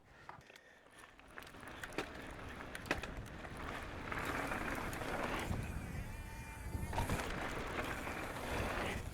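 Mountain bike rolling fast along a dirt trail: tyre rumble with scattered clicks and rattles, building up from near silence over the first few seconds.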